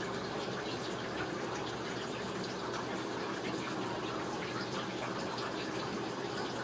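Steady, even rushing noise that keeps the same level throughout.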